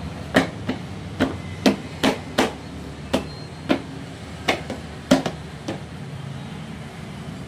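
A hand slapping and pressing down on a KRV 180 scooter's plastic floorboard panel, seating it in place: about a dozen sharp, uneven knocks in the first six seconds.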